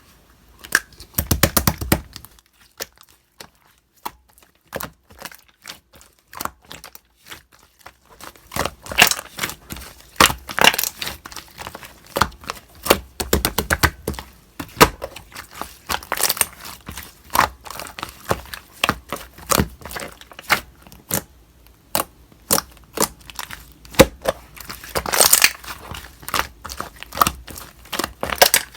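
Slime being squished and stretched by hand, giving irregular crackling and popping clicks. A short burst comes about a second in and a few isolated clicks follow; the clicking grows dense and continuous from about a third of the way through.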